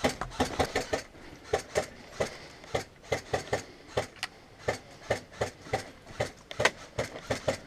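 Airsoft gun firing a string of single shots, about two to three sharp cracks a second, quicker in the first second.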